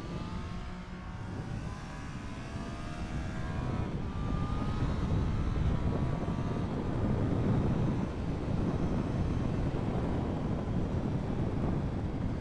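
Triumph Street Triple 765 RS inline three-cylinder engine under hard acceleration, its pitch climbing over the first few seconds. About four seconds in it gives way to a louder, denser rush of engine and wind noise at speed.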